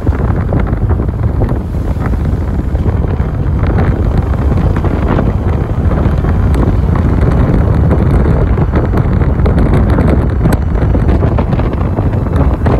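Strong wind buffeting the microphone of a camera held out of a moving car's open window: a dense, steady low rumble of rushing air, with vehicle noise beneath.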